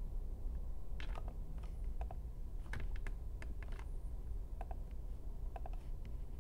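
Irregular clicks and key presses at a computer keyboard and mouse, about a dozen spread unevenly over several seconds, over a low steady hum.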